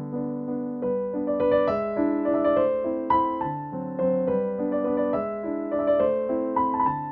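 Background piano music: chords with a melody line on top, the notes changing every half second or so.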